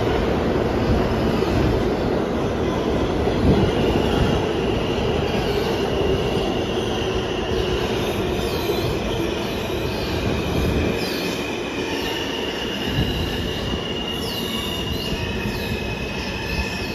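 New York City Subway R160 train running on the track, with a steady rumble of wheels on rail. A steady high-pitched whine comes in a few seconds in, and from about halfway through there are repeated short wheel squeals that rise and fall.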